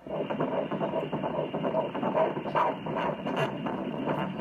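Ultrasound scanner's pulsed-wave Doppler audio of the fetus's blood flow: a rapid, regular whooshing pulse with the baby's heartbeat, coming on suddenly as the Doppler mode is switched on.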